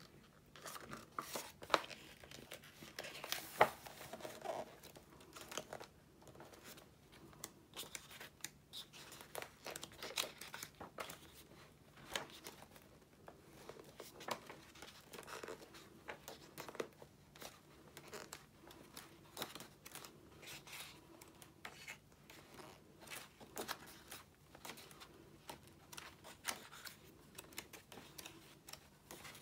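Pages of a hardback book being leafed through: soft paper rustling and page turns at irregular intervals, the loudest about three and a half seconds in.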